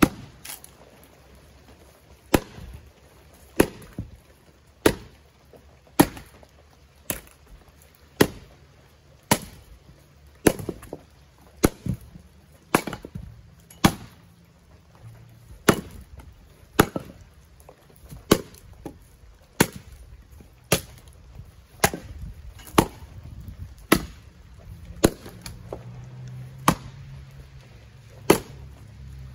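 Double-bit axe splitting firewood rounds: sharp chopping strikes at a steady pace of about one a second, around two dozen in all.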